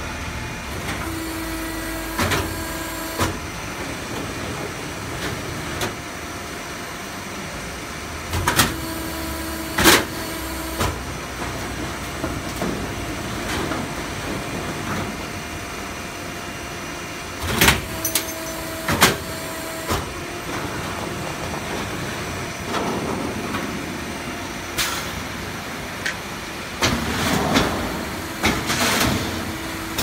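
Automatic sheet-metal HVAC duct production line running, with sheet steel feeding through its rollers. It gives a steady machine hum that rises for a second or two at a time, and sharp metallic clanks from its air cylinders and cutting and notching stations, about a dozen times and loudest near the middle.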